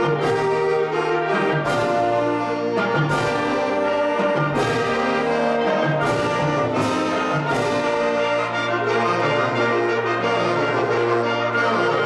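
Concert wind band playing with full brass sustaining chords over low bass notes. Sharp accented hits punctuate the music several times in the first eight seconds.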